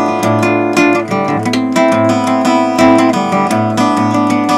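Background music: strummed acoustic guitar playing a steady rhythm.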